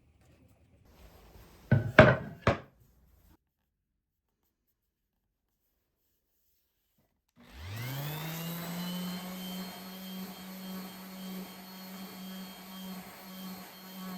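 Three sharp knocks of wooden boards being handled, close together about two seconds in. After a silent gap, a sliding table saw's motor starts about halfway through, spins up to speed within a second and runs with a steady hum.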